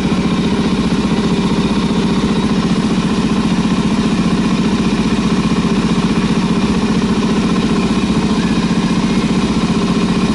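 2014 Suzuki DR-Z400SM's single-cylinder four-stroke engine idling steadily, with an even beat.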